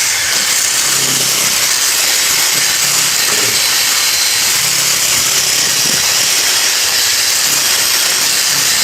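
Electric drill running continuously with a cake-mixer beater as its bit, scraping the scales off a fish: a steady high hissing whir.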